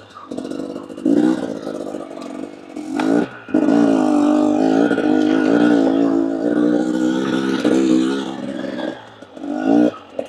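KTM EXC 250 enduro motorcycle engine pulling at low speed off-road. It gives short throttle blips about one and three seconds in, then a sustained pull of about five seconds with the revs rising and falling slightly. It drops back near the end with one last quick blip.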